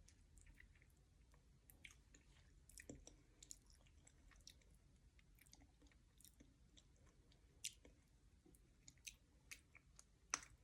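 Faint chewing of durian flesh: soft, scattered mouth clicks and smacks, a few of them louder near the end.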